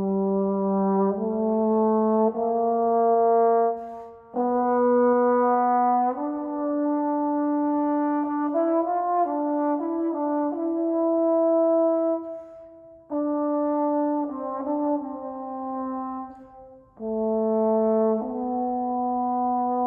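Solo trombone playing a slow line of sustained, connected notes, each held for a second or two. The line is broken into phrases by short pauses about four, thirteen and seventeen seconds in.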